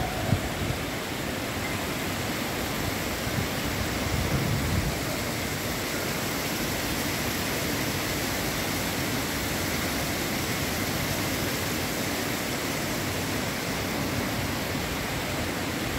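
Water pouring over a small cascade into an ornamental lake: a steady rushing hiss, with a few low rumbles in the first five seconds.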